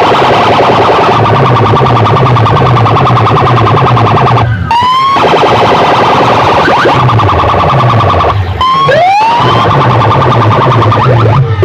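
Distorted DJ competition music played at full volume through a large sound-system rig: a pulsing bass pattern under a dense buzzing, alarm-like mid-range, with brief breaks filled by rising siren-like sweeps about three times.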